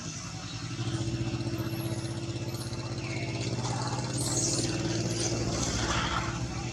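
A motor vehicle's engine running close by, swelling about a second in and fading away near the end, as a vehicle passes.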